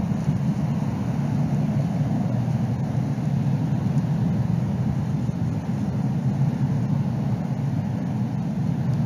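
Steady, low rumbling wind noise on an outdoor nest-camera microphone, with no bird calls.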